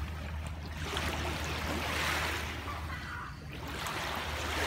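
Small waves washing in at the water's edge of a sand-and-gravel shore, the wash swelling and fading about every two and a half seconds, over a steady low hum.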